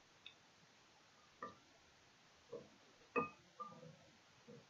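A handful of faint, short knocks and clinks, some with a brief ring, spaced a second or so apart: light handling of a bowl, containers and utensils while slime is being mixed.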